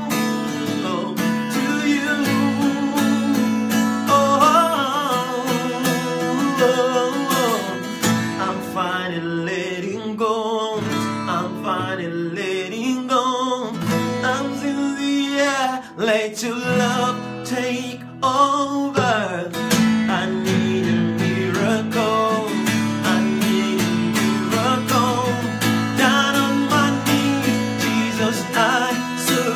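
A man singing a worship song while strumming chords on an acoustic guitar.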